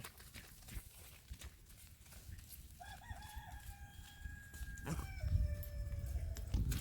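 A rooster crowing once, faint and distant: one long held call about three seconds long, with wind rumble on the microphone rising near the end.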